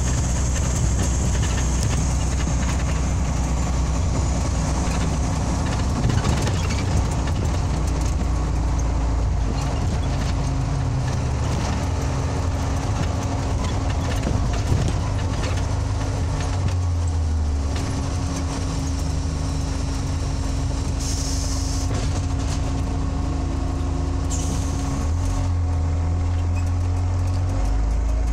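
Scania OmniLink CL94UB city bus driving, heard from inside the passenger cabin: a steady diesel engine drone with road and body noise. The engine note shifts twice, and there are two short high hisses in the last third.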